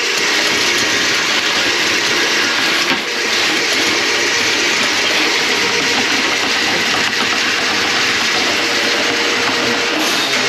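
Drain-cleaning machine running steadily as it clears a kitchen drain line clogged with grease.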